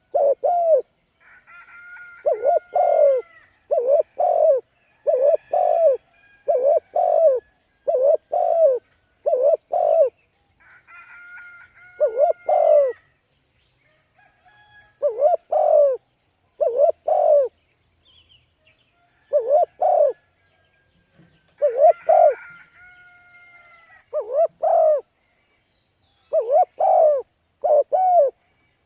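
Spotted dove cooing over and over, short low coos in quick groups of two or three with brief pauses between phrases. A higher, thinner chirping call from another bird comes in a few times between the coos.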